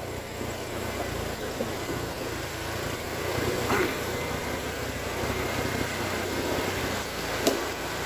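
ATV engine running steadily at low speed, under the even rush of a creek's water, with two short knocks, one about halfway through and one near the end.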